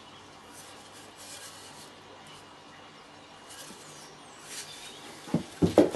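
A chisel scrapes and pares the bottom of a wooden lap joint in faint, repeated strokes. Near the end come a few loud, sharp knocks of wood on wood.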